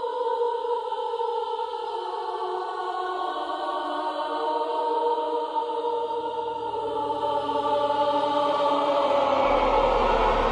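Background music of long, held choir-like chords that slowly swell, with a deep low rumble coming in about two-thirds of the way through.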